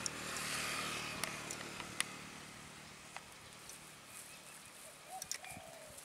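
A motor vehicle passing: its engine and road noise swell in the first second and fade away over the next few seconds, with a few sharp clicks.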